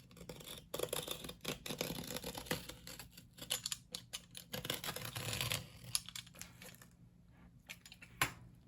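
A blade cutting and scraping through the paper along an old book's spine: a run of light, scratchy clicks and rustling, quieter after about six seconds, with one sharp click near the end.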